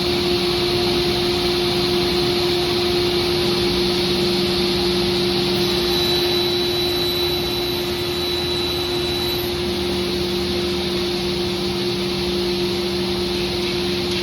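Felder K700 sliding table saw running with a steady hum as its blade crosscuts a sheet panel.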